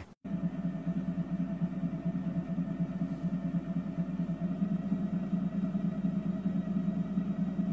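EZTone whole-body vibration plate running with a steady low buzzing hum and a fainter higher tone above it.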